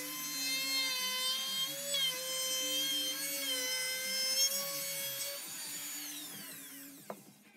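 Bosch compact palm router running at a steady high whine as it cuts along the edge of a cherry cutting board, the pitch wavering slightly with the load. About five and a half seconds in it is switched off and spins down with a falling whine.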